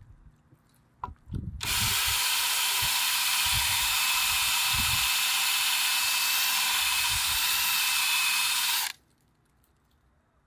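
Cordless drill spinning a countersink bit into a pre-drilled hole in a wet carbon-fibre hydrofoil mast. It makes a steady high whir that starts about a second and a half in and stops after about seven seconds, after a few soft knocks as the part is handled.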